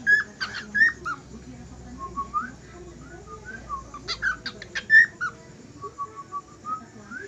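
Cockatiel whistling: a string of short rising whistled notes, with louder clusters of sharper calls near the start and again about four seconds in.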